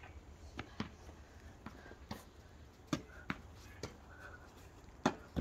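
A series of sharp, irregularly spaced taps and clicks, about nine in five seconds, the loudest about three seconds in and again near the end.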